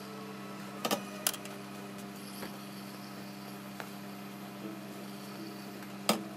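Hose-fed industrial steam iron being pressed over a fur coat's lining on a worktable: a steady low hum, with two sharp knocks about a second in and a louder knock near the end as the iron is handled and set down.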